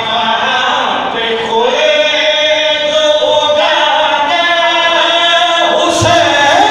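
Male voices chanting a Punjabi/Urdu Shia qasida together in long, held, gliding melodic lines. A sharp knock comes about six seconds in.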